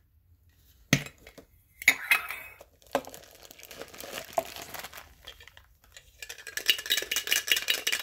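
A Funko Soda metal can being opened: the ring-pull lid pops with a sharp click about a second in and is peeled back with scraping. After that the boxed figure inside is worked loose and shaken out, with rapid metallic clinks and rattles near the end.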